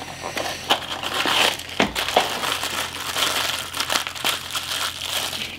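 A small cardboard blind box being opened and the foil bag inside crinkling as it is pulled out and handled, with many short sharp crackles.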